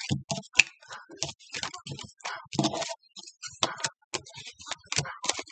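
A tarot deck being shuffled by hand: a run of quick, irregular clicks and rustles as the cards flick against each other.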